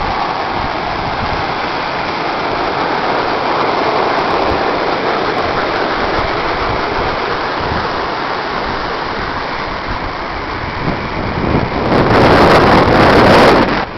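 Steady rushing wind and water noise at an Icelandic geyser, then near the end a sudden loud rush lasting about two seconds as the geyser erupts.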